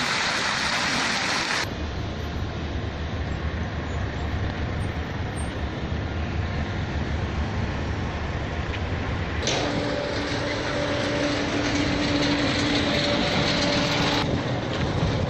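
Outdoor ambience from clips cut together, changing abruptly at each cut. First comes the splashing hiss of a fountain's jets for about a second and a half. Then a low rumble with a faint haze over it, and from about halfway through a steady low hum with two held tones lasting about five seconds.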